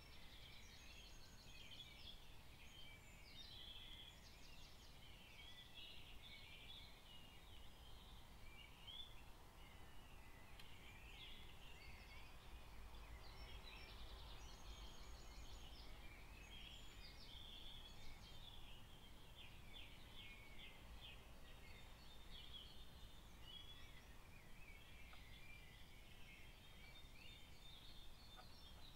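Faint bird song, with repeated high chirps, quick trills and stuttering phrases, over a low steady background rumble.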